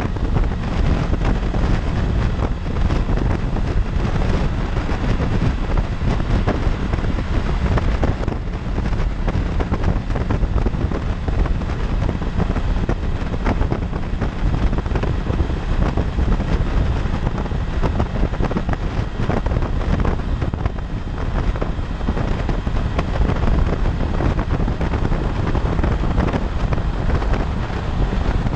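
Steady wind rushing over the camera's microphone on a motorcycle at freeway speed, with road and traffic noise mixed beneath it.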